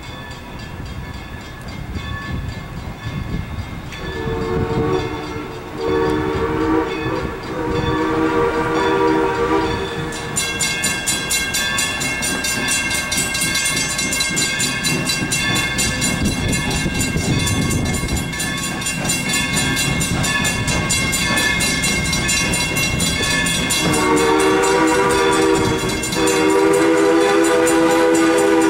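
Steam locomotive No. 40's chime whistle blowing as it approaches, in two blasts a few seconds in and again in longer, louder blasts near the end. Between them, from about ten seconds in, a grade-crossing bell rings rapidly and steadily.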